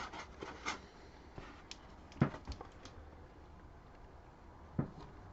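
A few light knocks and clicks of a cardboard box and its contents being handled, the loudest about two seconds in, over a faint low hum.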